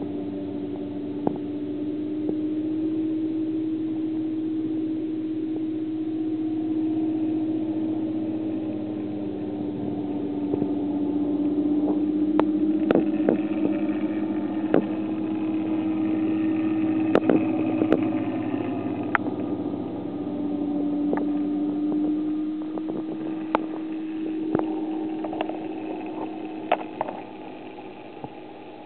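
Steady mechanical hum of reef aquarium pumps running, its pitch wavering slightly, with scattered light clicks from about halfway through.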